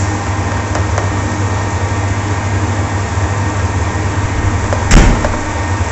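Steady drone of a commercial kitchen's ventilation fan with a low hum, and one sharp clank about five seconds in.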